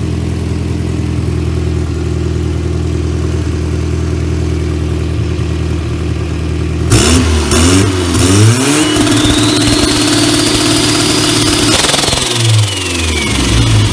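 Turbocharged VW Voyage's AP four-cylinder engine idling, then revved up hard about seven seconds in and held, with a rising turbo whistle. Near the end the throttle is released: the whistle falls away and the engine drops back toward idle.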